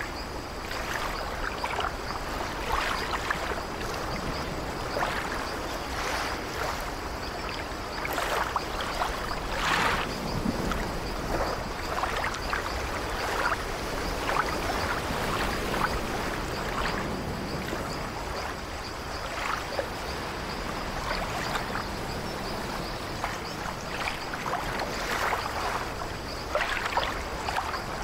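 Ocean surf: waves breaking and washing up the shore, a continuous rush of water with irregular splashes every couple of seconds.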